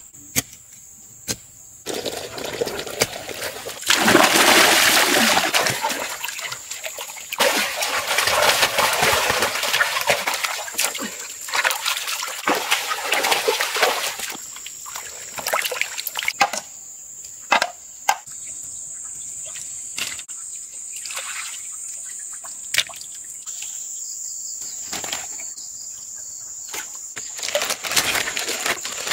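Water splashing and sloshing in the shallow muddy water of a drained fish pond as fish are caught by hand, loudest in the first half. After that come scattered sharp knocks and rustles. A steady high-pitched buzz runs underneath throughout.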